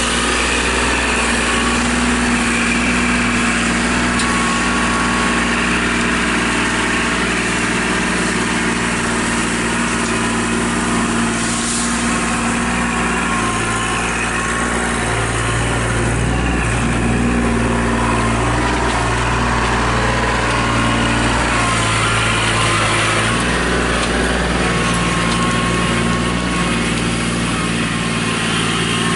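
Kubota compact tractor's diesel engine running steadily under work, its pitch shifting up and down a few times as the loader-backhoe is driven.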